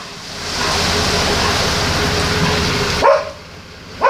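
A pickup truck towing a trailer-mounted directional drilling rig drives past on a wet street, a steady rush of engine and road noise that stops abruptly about three seconds in. A dog barks twice right after.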